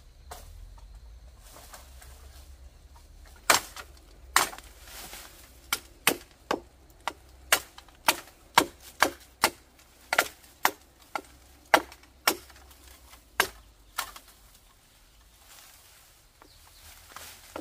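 A run of about twenty sharp, irregular knocks or chopping strikes, one to two a second, starting a few seconds in, with a pause before one last strike near the end.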